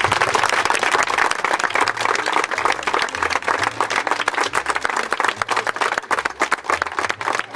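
A small crowd applauding, many hands clapping in a dense, steady stream.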